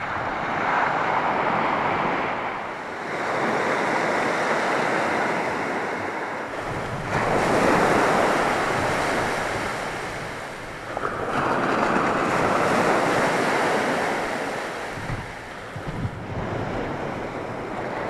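Low surf breaking and washing up a sandy beach, with wind. The rush of the water swells and eases every few seconds.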